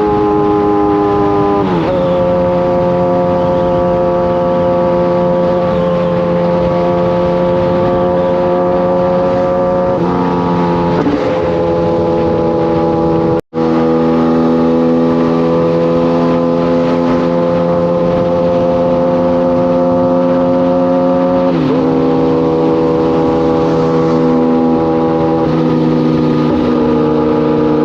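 Kawasaki inline-four sport bike engine running steadily at cruising speed. Its pitch drops sharply several times as it shifts up a gear. About halfway through the sound cuts out for an instant.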